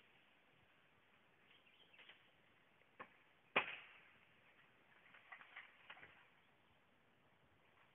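Sharp knocks and snaps of dry wood and bamboo in forest undergrowth: one knock about three seconds in, a louder one half a second later, then a short run of lighter crackles and clicks.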